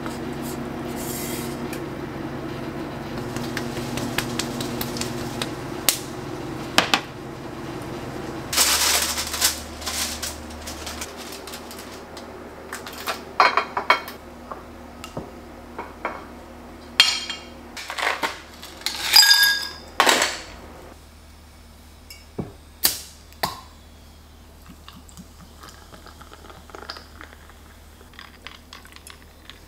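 A wooden spatula scrapes stir-fried corn kernels out of a nonstick frying pan into a ceramic bowl over a steady hum. After about eight seconds come a string of sharp clinks and clatters of ceramic plates and cutlery on a countertop.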